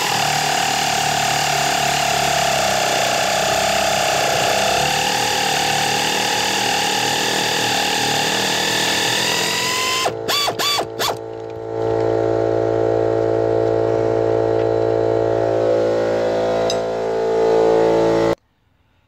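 Pneumatic air ratchet running for about ten seconds as it spins off a strut top-mount nut, its whine dipping in pitch under load and rising again as the nut frees up, then a few short trigger blips. An air compressor runs under it, pretty loud, and carries on steadily alone for several seconds until the sound cuts off abruptly.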